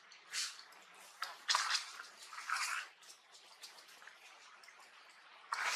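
Several short rustling swishes, the loudest about a second and a half in and another near the end, over a faint hiss with scattered small ticks.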